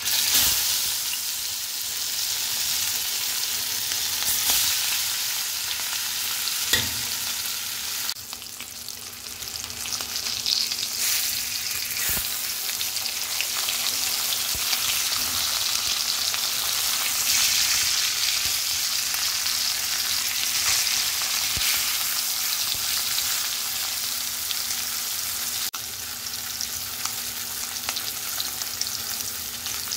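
Turmeric-coated hilsa fish steaks frying in hot oil in a stainless steel kadai: a loud, steady sizzle that starts suddenly as the fish goes into the oil. A few light clicks of a metal spoon against the pan.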